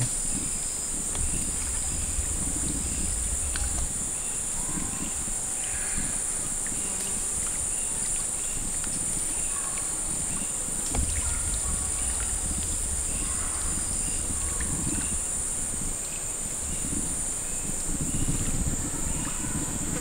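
Steady, high-pitched drone of an insect chorus, with a low rumble that comes and goes twice and a few faint chirps and ticks.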